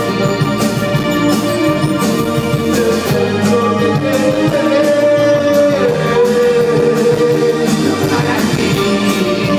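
Live band playing loud music on electric guitar, drums and keyboards over the stage PA, with a steady drum beat. A held melody note steps down to a lower one about six seconds in.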